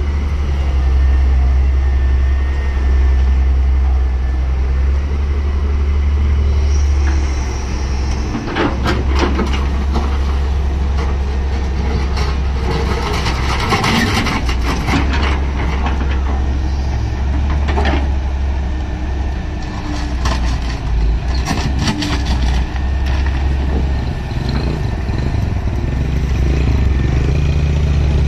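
Hitachi wheeled excavator's diesel engine running steadily under load, with bursts of scraping and clatter several times in the middle as the steel bucket digs into dry soil and stones and dumps it.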